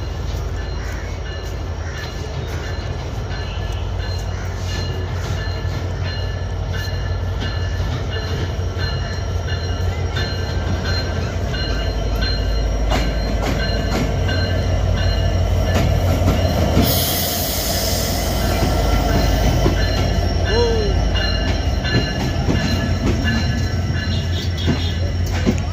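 Diesel locomotive and intercity coaches rolling slowly into a station, braking to a stop. A steady low engine drone grows louder as the locomotive draws level, with steady high squealing from the wheels and brakes, and a short hiss about two-thirds of the way through.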